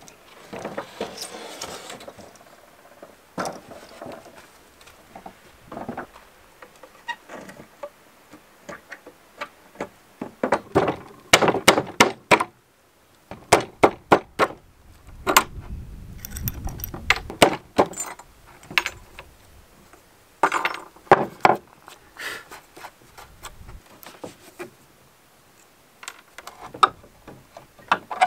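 Rusty nails being pried and pulled out of an old weathered wooden plank with a hatchet's nail claw and pincers: repeated sharp knocks, clinks and scrapes of steel against nail and wood, coming in quick clusters. Near the start the heavy plank scrapes and knocks as it is shifted on the sawhorses.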